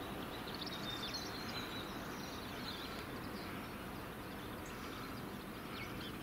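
Steady, faint outdoor background noise with small birds chirping now and then: short, high calls scattered throughout.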